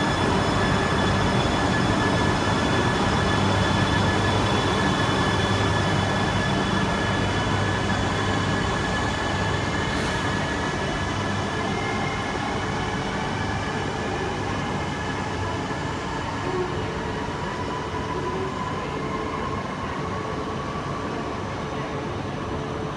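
Shinkansen train moving along the platform: a continuous rumble and rush with a steady whine, and a higher whine that rises in pitch over the second half while the overall sound slowly fades.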